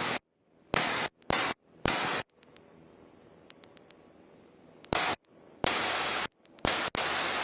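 Aircraft radio static: about six short bursts of hiss that cut in and out abruptly, with a gap of nearly three seconds in the middle and a faint hum between them.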